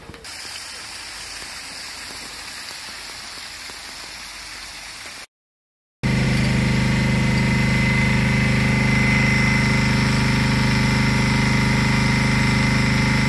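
A steady rushing noise for about five seconds, then after a cut a loud, steady motor running at constant speed: a low drone with several held tones and a thin high whine.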